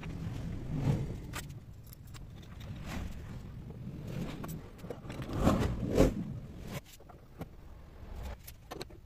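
Handling noise from wooden-disc clamps on threaded steel rods being fitted across an acoustic guitar body: scraping, rubbing and light clicks, with a louder bump about six seconds in.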